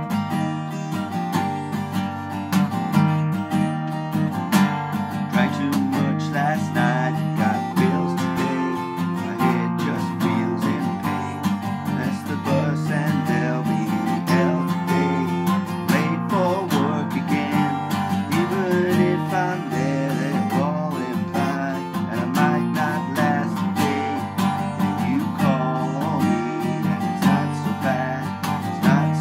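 Strummed steel-string acoustic guitar with a capo, played steadily while a man sings along.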